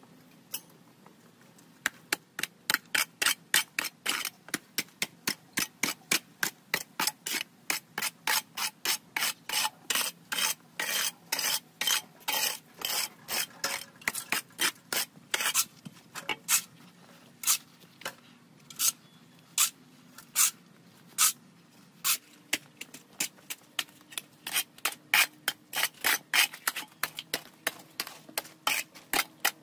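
Metal hoe blades scraping soil across a concrete yard in quick, repeated rasping strokes, about two or three a second, starting about two seconds in and thinning out for a while past the middle before picking up again.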